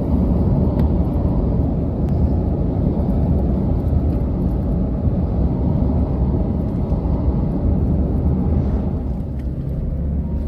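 Car driving on the open road: a steady low rumble of road and engine noise.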